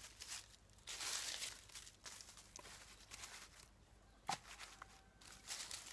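Dry sticks and leaf litter rustling and crackling as kindling is handled, in several short bursts, with one sharp crack about four seconds in.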